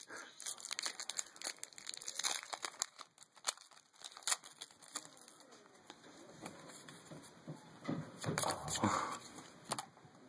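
Foil booster-pack wrappers and trading cards being handled: crinkling and rustling with many quick clicks.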